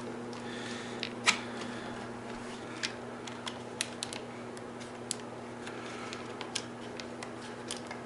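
Scattered light clicks and taps of a bicycle fender being handled and adjusted on a fat bike's fork, with one sharper click about a second in, over a steady low hum.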